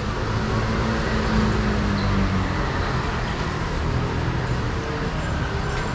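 Steady low rumble of busy street background noise, with no distinct single event.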